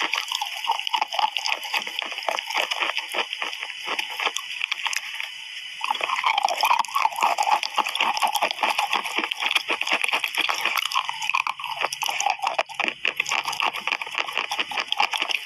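Close-miked chewing of wet chalk: a steady run of rapid crunches with wet mouth sounds, easing off briefly about four to six seconds in.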